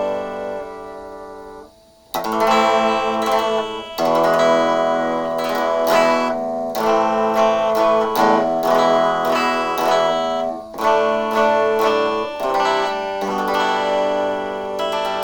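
Epiphone SG Junior electric guitar playing strummed chords through its amplifier, each chord ringing out before the next. The sound dies away briefly about two seconds in, then the strumming starts again.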